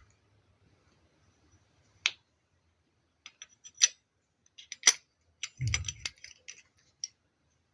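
Metal clicks and scrapes of a tap-seat reamer being fitted into a brass tap body and screwed down by hand: single sharp clicks a couple of seconds apart, then a quick cluster of clicks with a dull knock about six seconds in.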